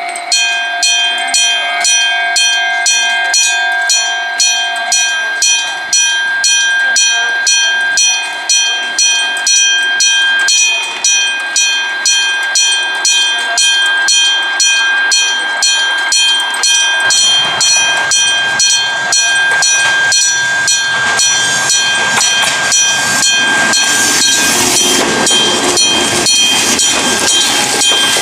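Japanese railway level-crossing alarm ringing, an even repeated ding at about two strokes a second. From about seventeen seconds in, a train approaches and passes under the ringing, loudest near the end.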